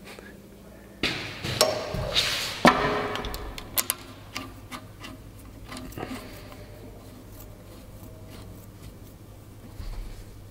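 Metal clinks and knocks of a ring spanner and steel hydraulic hose fittings being handled during hand assembly. A cluster of sharp knocks comes in the first few seconds, followed by scattered light ticks and one small knock near the end.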